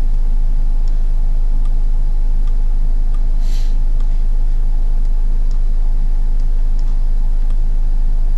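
Loud, steady electrical hum at about 50 Hz with its overtones, the mains hum of the recording setup, with a few faint clicks now and then and a short hiss a little past three seconds.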